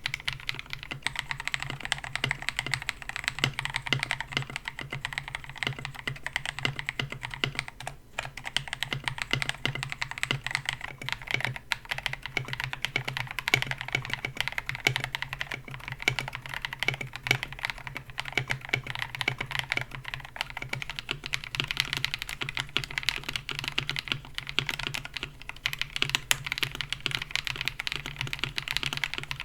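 Steady, fast typing on a KBD67 Lite mechanical keyboard with KTT Mint linear switches on a polycarbonate plate: a continuous stream of keystroke clacks, pausing briefly about eight seconds in.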